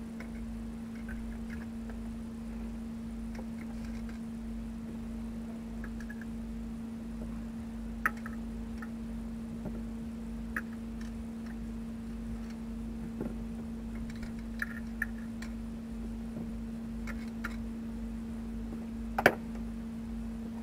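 Scattered light metallic clinks and taps of hand tools at a truck's rear wheel hub, with one louder knock near the end, over a steady low hum.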